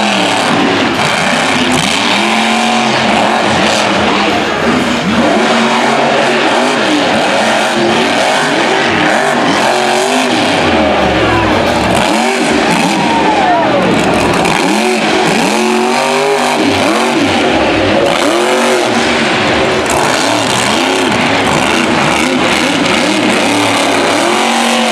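Monster truck 'Over Bored' with its engine revving hard, its pitch rising and falling again and again as it drives.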